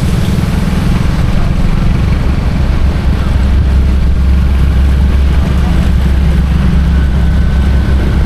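An engine running steadily: a loud, even low rumble with a fast pulse.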